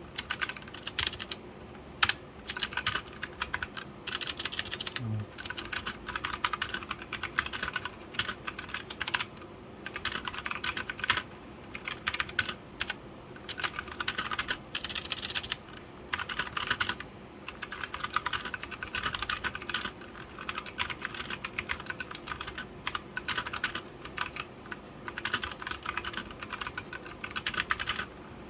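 Typing on an Aula F2058 mechanical keyboard fitted with tactile brown switches: quick runs of keystrokes in bursts, with short pauses between them.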